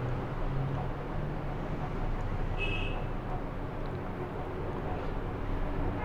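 Steady low hum over background noise, with one short high-pitched tone a little under halfway through.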